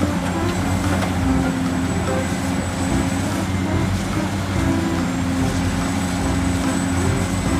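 Steady mechanical running noise, like a vehicle or motor, with a low rumble and a thin high whine. It cuts off abruptly at the end.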